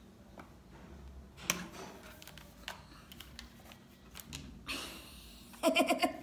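A hard Morphe eyeshadow palette being handled and opened: scattered clicks and taps, the sharpest about a second and a half in, then a brief rustle. Near the end comes a short, loud wordless vocal sound.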